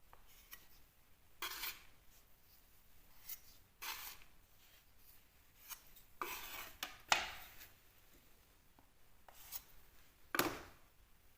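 Several short scrapes and rubs from hand work on plasterboard: adhesive being worked with a filling knife and a plasterboard patch being set into an old socket hole. The loudest scrapes come about seven seconds in and near the end.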